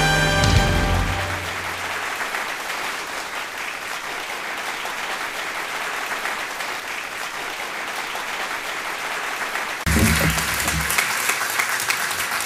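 Audience applauding. Closing brass music fades out about a second in, and the clapping swells suddenly louder about ten seconds in.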